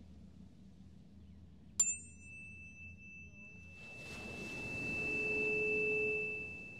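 A tuning fork is struck about two seconds in and rings on as one steady high tone, with its brief higher overtones dying away within a second. In the last few seconds a small wave washes up the beach, its hiss swelling and fading.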